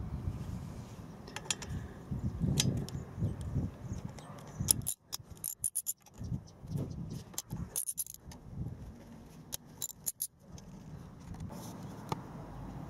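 Metal hand tools clinking: a 10 mm socket on its extension being handled, with light metallic clicks and taps at irregular moments over a low background rumble.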